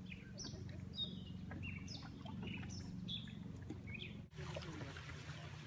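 Wild birds chirping in the trees, a series of short calls each sliding down in pitch, several a second. About four seconds in the sound cuts off abruptly and gives way to a steady hiss.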